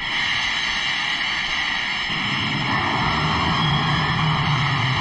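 Tokusatsu ray-gun sound effect: a beam weapon firing continuously, a loud steady hissing whine that starts abruptly. A deeper rumble joins it about two seconds in.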